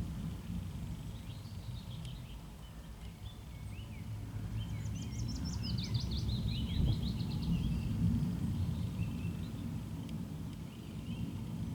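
A low, continuous rumble from an unidentified distant source, which the recordist judges is not a jet and not thunder, and which sets up no ground vibration. Small birds chirp over it, with a quick trill of repeated notes about five to seven seconds in.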